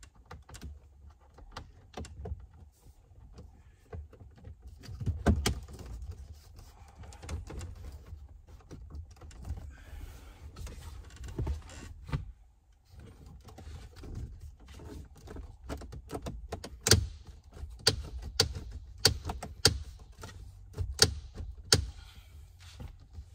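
Plastic dash trim being handled and pressed into place: irregular clicks, taps and knocks, coming thicker and sharper in the second half.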